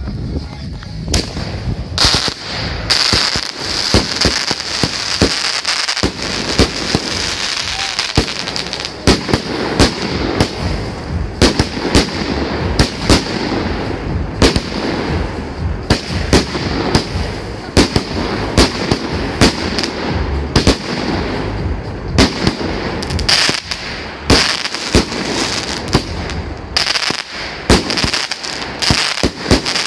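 Klasek Signature Range 36-shot, 30 mm consumer fireworks cake firing its shots in quick succession. Sharp launch and break reports, several a second at times, sound over a constant hiss.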